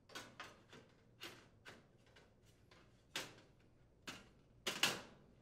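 Irregular sharp metallic clicks and knocks as a metal stop bracket is set against the range's sheet-metal side panel and a Phillips screwdriver engages its mounting screw; the loudest knock comes near the end.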